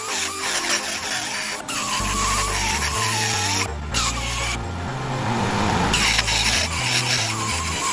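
Die grinder with a rotary burr grinding a steel steam-pipe bend in a vise, its whine wavering in pitch as the burr bites and frees. The grinding eases off about four seconds in and picks up again near six seconds.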